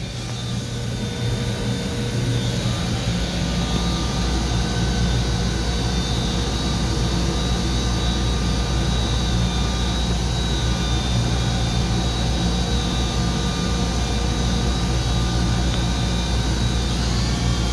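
Spindle of a 2015 Mazak VCN 530C CNC vertical machining center running at about 4,000 RPM: a steady machine whine made of several even tones over a low hum. A few of the tones edge up in pitch near the end.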